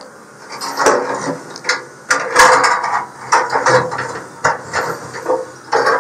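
Irregular scraping, rubbing and light clicks as a braided metal probe cable is fed and pulled through a hole in a pellet grill's sheet-steel wall.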